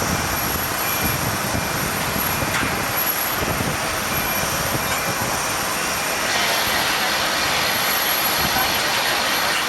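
Jet airliner engine noise, a steady continuous rush that grows slightly louder about six seconds in.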